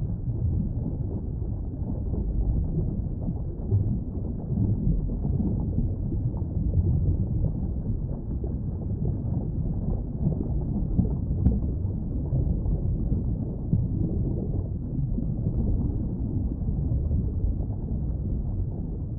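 Underwater water noise: a steady low rumble and wash.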